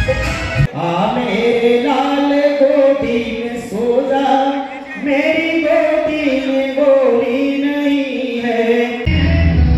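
A man singing unaccompanied into a microphone, long held notes that bend in pitch. Loud music with a heavy bass is cut off just under a second in and comes back near the end.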